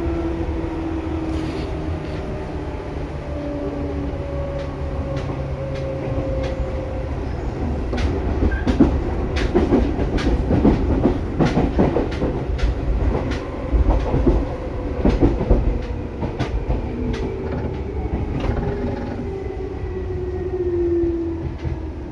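Seibu 2000 series electric train running, heard from inside the car above the line breaker: the motor and gear whine slides slowly down in pitch as the train loses speed. Over a rumble of wheels, a run of wheel clacks and knocks over rail joints comes in the middle.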